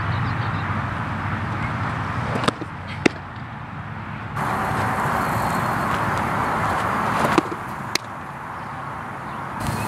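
Steady outdoor background noise broken by sharp pops, two a few seconds in and two more later on: fast-pitch softball pitches smacking into a catcher's mitt.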